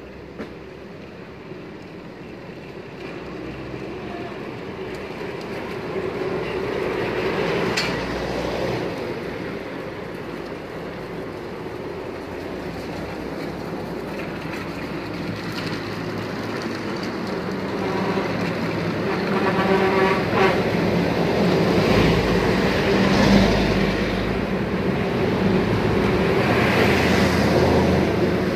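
Street traffic: engines of passing vehicles, growing louder over the stretch, with the heaviest low rumble of a vehicle passing close in the second half.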